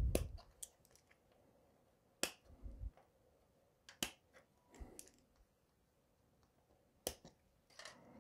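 Hobby clippers snipping grey plastic model parts off a sprue: about four sharp, isolated clicks a second or more apart, with a dull knock right at the start and a few softer knocks of the plastic frame being handled.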